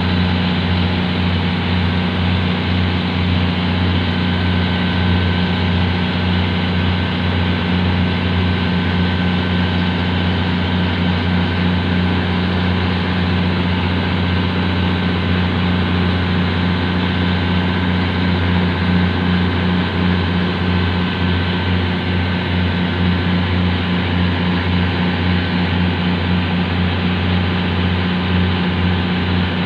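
Boat engine running steadily, a deep, even drone.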